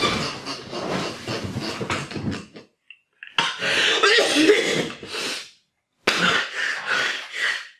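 Hard, breathy, wheezing laughter in several short clips spliced together, cutting off abruptly between them.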